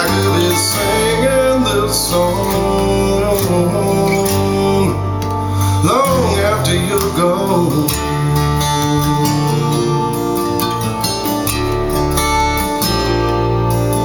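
A recorded song led by acoustic guitar, with bass, played back through a pair of Bowers & Wilkins 604 S3 floor-standing speakers.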